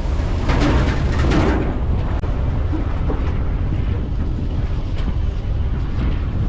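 Wind buffeting the microphone and the low rumble of a pickup truck driving, heard from its open back, with a few stronger gusts in the first second or two.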